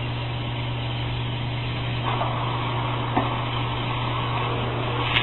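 High-voltage substation switchyard humming steadily, a low electrical hum over a hiss, with a faint tick about three seconds in.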